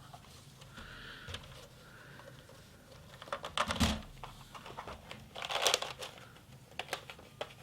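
Hands handling a plastic 3D printer filament spool wrapped in meat netting: rustling and crinkling, with two bursts of light clicks and knocks about three and a half and five and a half seconds in.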